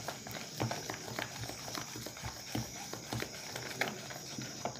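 Spoon stirring a foamy mix of glue and shaving cream in a plastic bowl: irregular soft clicks and taps of the spoon against the bowl.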